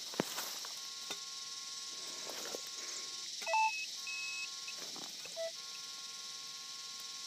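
Electronic tones from metal-detecting gear as a handheld pinpointer is worked at a dug hole: a steady buzzing tone that drops out twice, with a few short, higher beeps about halfway through. A sharp click just after the start.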